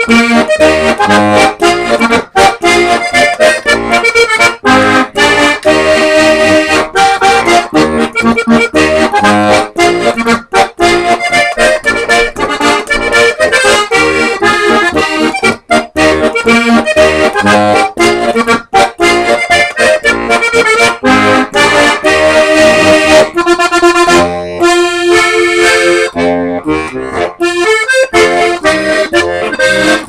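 1980s Matt Rote three-row diatonic button accordion (button box) tuned B♭/E♭/A♭, playing a polka: treble chords and melody over a steady pulsing bass. A few seconds before the end the playing thins to a sparser passage with short breaks.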